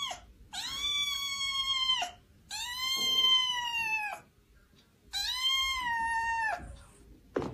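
Kitten meowing: three long, high calls of about a second and a half each, each held level and then dropping in pitch at the end, with short pauses between. The end of another call is heard at the very start.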